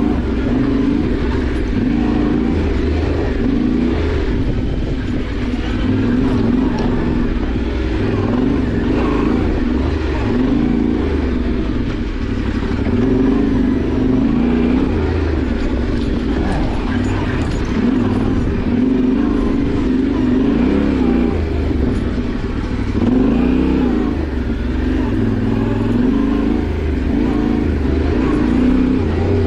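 Yamaha Ténéré 700's parallel-twin engine running under constantly changing throttle, its revs rising and falling.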